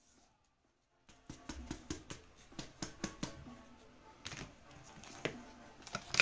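Trading card being handled into a soft plastic sleeve and a rigid plastic toploader: a quick run of small plastic clicks and rustles, starting about a second in.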